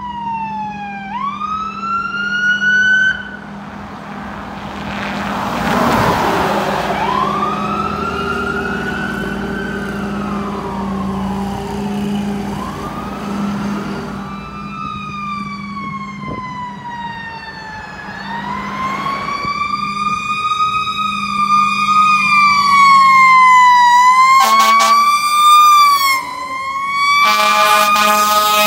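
Emergency vehicle sirens from responding fire trucks and an ambulance, wailing up and down in pitch over a steady engine drone. Near the end, two long horn blasts sound as the ladder truck passes.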